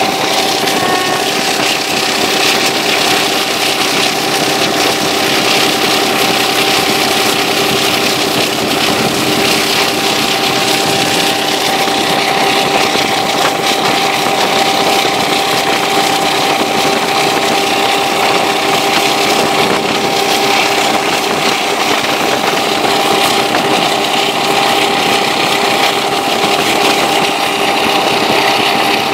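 CP 1900-class diesel-electric locomotive running along the line: its V16 diesel engine gives a steady drone with a constant whine, over the noise of wheels on rail and passing air.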